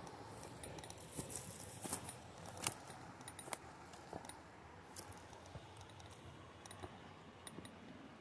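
Footsteps and scuffs of someone climbing a rocky, brushy slope: scattered clicks and scrapes, a few sharper ones in the first few seconds, fainter after.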